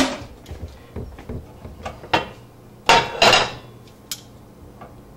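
Metal tongs clinking and knocking against a stainless steel sauté pan as pork sausages are handled: a handful of separate sharp clanks, the loudest two close together about three seconds in.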